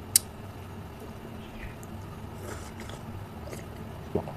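Close mouth sounds of a person eating chutney off a finger: faint wet licking and chewing, with one sharp click shortly after the start and a duller knock near the end.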